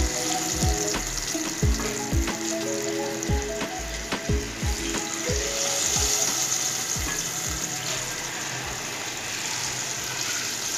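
Hot tempering oil (tadka) with red chillies sizzling in a pot of kadhi as a ladle stirs it. Background music with a steady thumping beat plays over it.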